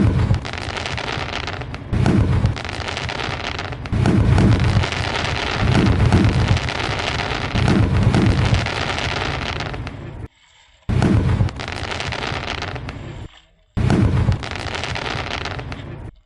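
Fireworks display: dense crackling with deep booms going off every couple of seconds. The sound cuts out abruptly for a moment twice in the latter half.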